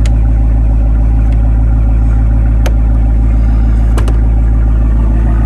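A 6.4-liter (392) V8 engine idling steadily with a deep, even rumble, and a couple of sharp clicks partway through.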